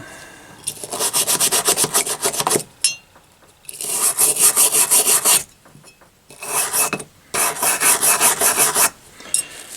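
Rapid back-and-forth hand scrubbing or rasping strokes, about eight a second, in four bursts with short pauses between.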